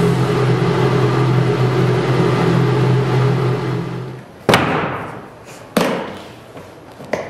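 A steady low hum fades out about four seconds in, then come three sharp hits, each trailing off with a ringing decay, roughly a second and a half apart.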